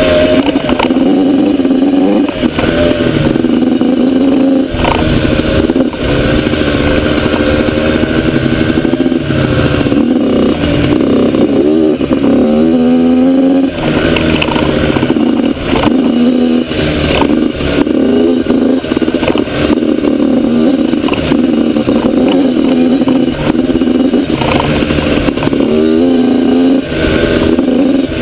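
Yamaha YZ85 two-stroke dirt bike engine heard from on board, revving up and dropping off over and over as the throttle is worked and the gears change.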